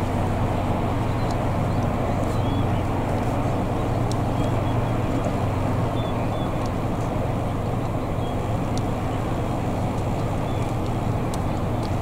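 Steady low rumble of outdoor background noise, with a few faint, short high chirps scattered through it.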